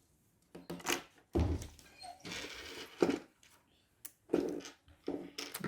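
Clicks, taps and a short scraping noise from small tools working on the opened Samsung Galaxy Note 3 Neo, prying at its charging-port board.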